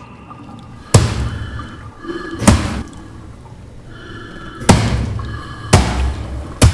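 Foley punch and body-blow hits from a fist fight: five heavy thuds at uneven intervals, each a sharp smack with a low boom.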